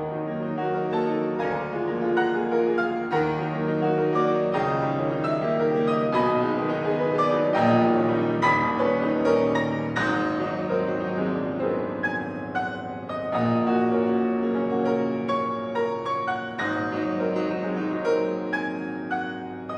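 Solo piano playing a classical piece, chords and melody notes struck one after another with ringing sustain.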